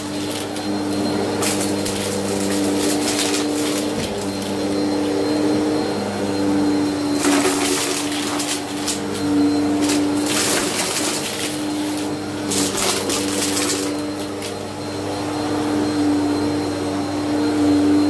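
Bissell CleanView upright vacuum running on carpet with a steady motor hum. Several times in the middle it gives a light crunch as it sucks up small scattered bits of debris.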